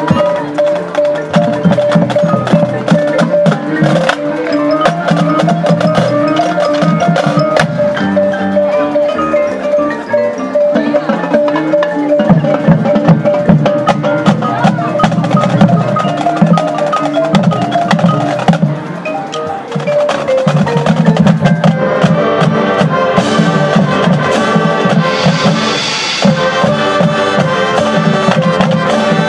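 High school marching band playing its field show: wind and brass parts over the front ensemble's marimbas and xylophones, with drum strokes throughout. The music drops back briefly just past the middle, then comes in louder.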